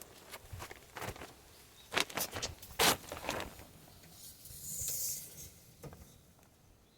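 Scattered light knocks, clicks and rustling handling sounds, the sharpest about two and three seconds in, with a brief hiss near five seconds.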